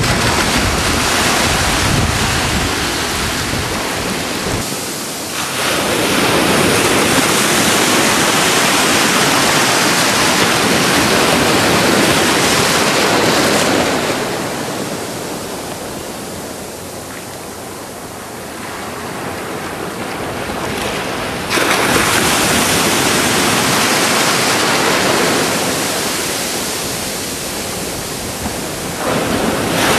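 Ocean surf breaking and washing in, swelling and easing over several seconds, with wind buffeting the microphone. It goes quieter around the middle, then comes back loud suddenly about two-thirds of the way through.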